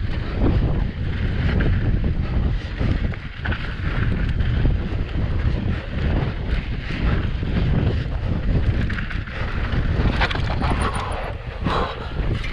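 Wind buffeting the camera microphone over the rumble of knobby mountain-bike tyres on loose dirt on a fast descent, with frequent short clatters from the bike as it goes over bumps.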